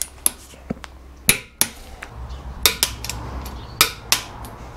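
Sharp metallic clinks and knocks of hand tools against steel suspension parts, about eight at irregular intervals, as a bolt is worked into a motorcycle's rear shock linkage.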